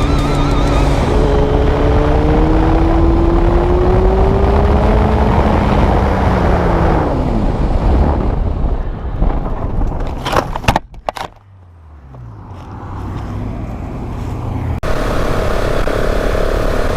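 Motorcycle engine running under heavy wind noise, its pitch sinking as the bike slows and then dropping sharply. About ten seconds in comes a short burst of sharp knocks and scrapes as the bike goes down in a crash, followed by a quieter stretch with a low engine hum, then another motorcycle riding steadily.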